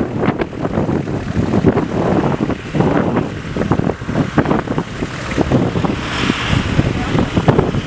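Fimmvörðuháls fissure eruption: a continuous rumble broken by rapid, irregular bursts and pops from the lava fountains, with a hissing rush about six seconds in.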